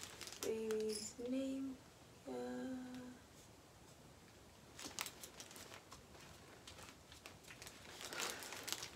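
A woman humming three short, steady notes in the first three seconds. Then come faint rustling and crinkling of paper sticker backing as wall decals are handled and pressed onto the wall.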